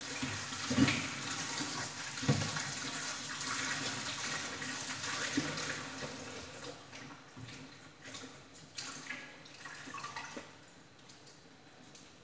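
Running tap water and splashing as hands swish leafy greens in a plastic basin of water in a steel sink. About halfway through, the steady rush of water dies away, leaving small splashes and drips as the leaves are lifted out.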